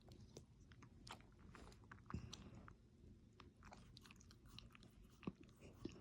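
Near silence with faint, irregular wet clicks and smacks of a dog's mouth, like chewing.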